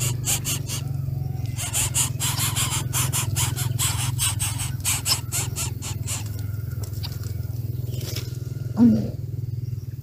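Rapid dry rustling and crackling as a coucal works its bill among its chicks in a nest of dead palm fronds, over a steady low hum. Near the end there is one short, low call from the birds at the nest.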